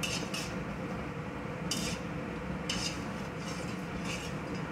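Golgappa puris deep-frying in a wok of hot oil, with a steady sizzle throughout. A wire-mesh skimmer scrapes and clinks against the metal pan about six times in short scratchy strokes as the puffed puris are turned and scooped out.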